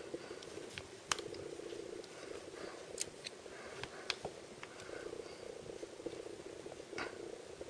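Toy packaging being handled and opened: a few sharp clicks and taps, about four, over a steady low buzzing hum.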